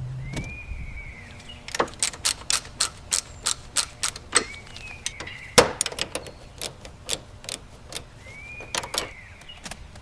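Hand tools working on metal car parts: a run of sharp metallic clicks and clinks, a few a second, with three short squeaks that rise and fall.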